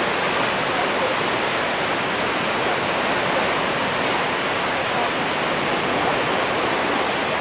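Upper Yosemite Fall's falling water, heard as a steady, even rush with no breaks.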